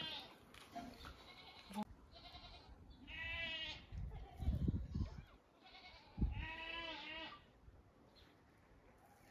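A goat bleating, about three calls, with a couple of low thuds between them.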